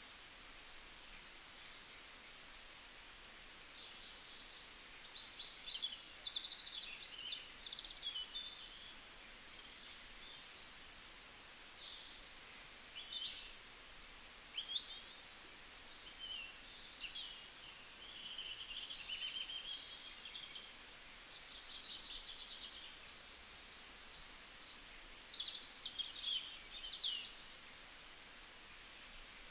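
Small birds chirping and singing: many short high calls and quick rising and falling notes, coming in loose clusters over a faint steady hiss.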